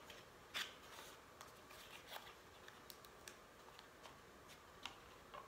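Near silence broken by a few faint clicks and rustles of hands working a cardboard divider out of a camera carrying case, the sharpest tick about half a second in.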